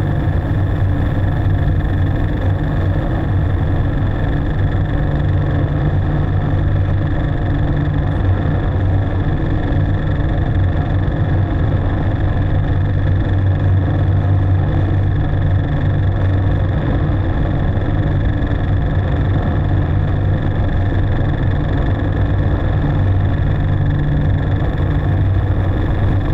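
Live electronic drone from a modular synthesizer: a loud, steady, dense wash of noise over a heavy low hum, with held higher tones and no beat.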